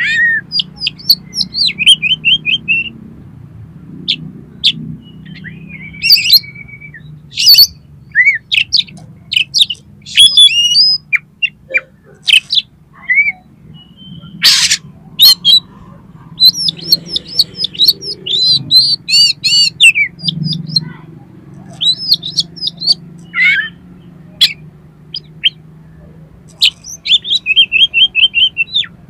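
Oriental magpie-robin (kacer) song: a varied string of short whistled notes, chirps and quick runs of repeated notes, over a steady low hum. A single sharp click sounds about halfway through.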